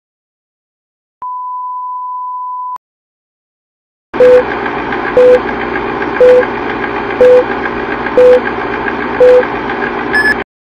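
Colour-bar test tone: a steady 1 kHz beep held for about a second and a half. Then the film-leader countdown sound effect: a steady film-projector whir with a short, loud beep once a second, six times, and a brief higher beep near the end.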